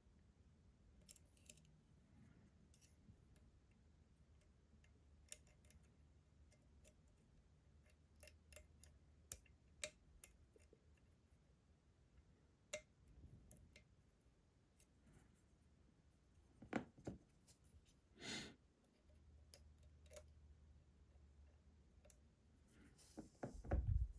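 Faint, irregular clicks and small scrapes of lock picks, a slider fork and a short hook, working the sliders inside an ASSA Desmo slider lock, with a louder bump of handling near the end.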